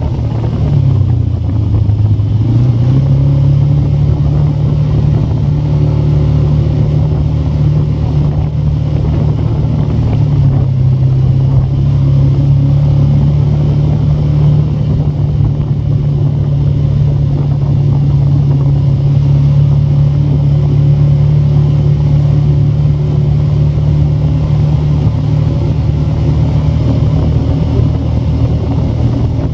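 Vehicle engine running steadily while driving on a dirt road, its pitch dipping and climbing back in the first few seconds and then holding steady.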